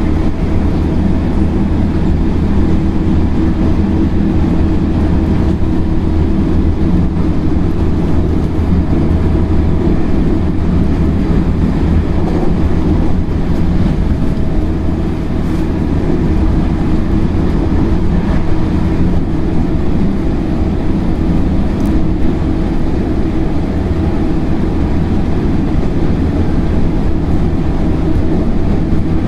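JR Central 313 series electric train running at a steady speed, a continuous rumble of wheels on rail with a steady motor hum, heard from inside the car.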